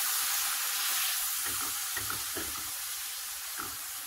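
Minced garlic and seasonings sizzling in melted ghee in a stainless steel skillet while a silicone spatula stirs them, with a few light scrapes against the pan. The sizzle eases a little, the heat having just been turned down.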